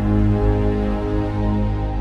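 Background music: soft new-age style music with sustained, held notes over a low bass.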